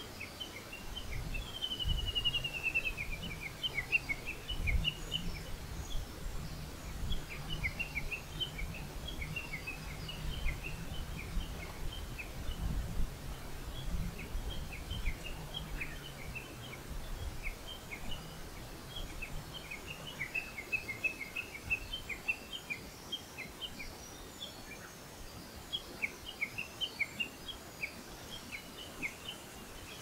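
Wild songbirds chirping and singing, with many short high notes and a falling trill about two seconds in. A low rumble underneath fades out about two-thirds of the way through.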